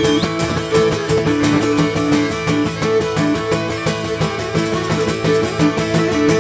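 Cretan lyra playing a syrtos dance melody over a strummed, plucked-string accompaniment, with no singing.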